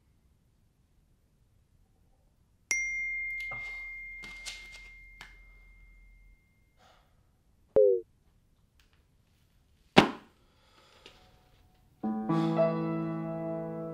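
A single clear ding on one high note, about three seconds in, rings and fades over a few seconds while a few light clicks sound. Then comes a short, low tone that falls in pitch, a sharp click, and near the end piano chords begin.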